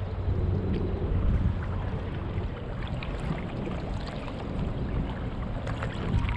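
Water splashing and lapping as a paddleboard is paddled, with a low wind rumble on the microphone and a few sharper splashes about six seconds in.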